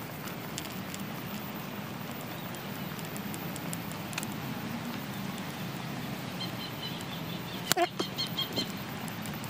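Steady low outdoor background hum. Towards the end a small bird chirps in a quick run of short high notes, and there is one sharp click.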